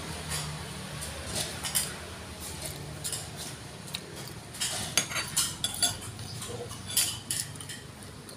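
Spoon and chopsticks clinking against a bowl of noodle soup while eating, with a run of short, irregular clicks.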